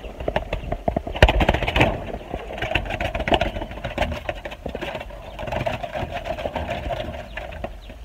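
Pigeon wings flapping and clattering in a coop, fast and loudest about a second in, with scuffling and rustling as the bird moves about.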